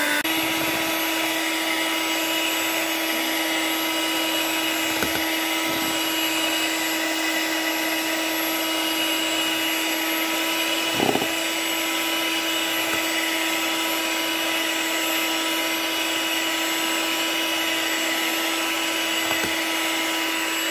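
Electric mixer with whisk beaters whipping chilled cream at high speed: a steady motor hum whose pitch steps up slightly just after the start, with a few light knocks, the clearest about halfway through.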